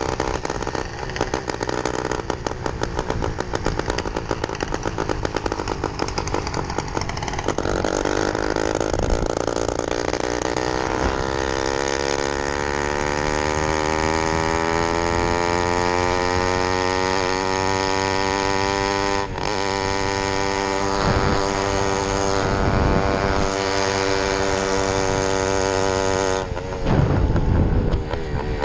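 Small two-stroke bicycle engine kit running under way. It climbs steadily in pitch for about ten seconds as the bike speeds up, then holds steady, with wind rumble on the microphone. Near the end there is a louder rough patch.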